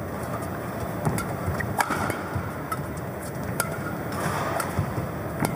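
Badminton rally: several sharp racket strikes on the shuttlecock, a second or two apart, over the steady background noise of the hall.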